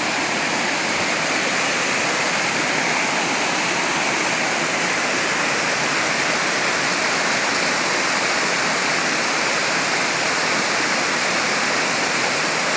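Waterfall rushing steadily: an even, unbroken noise of falling and splashing water.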